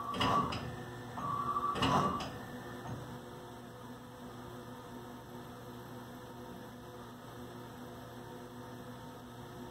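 Haas TM1 CNC mill's axis drives whining as the table moves the pen, in two short bursts with a light rattle in the first two and a half seconds, then only a quieter steady machine hum.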